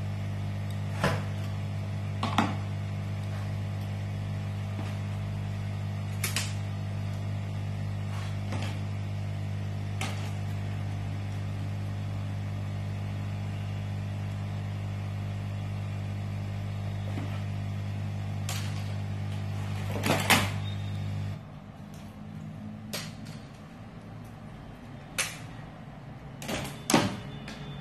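A small electric blower hums steadily, then switches off about three quarters of the way through, leaving a quieter background. Sharp clicks and taps sound every few seconds throughout.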